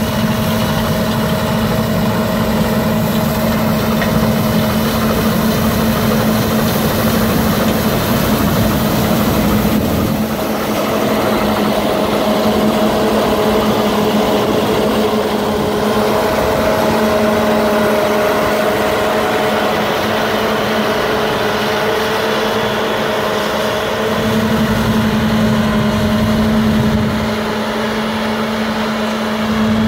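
Versatile combine harvester running under load while harvesting, a steady engine and threshing drone with a constant hum.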